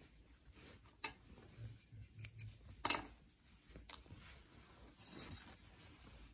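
Faint handling sounds of hand sewing: soft rustles of knitted fabric and thread, and a few small clicks, the sharpest about three seconds in.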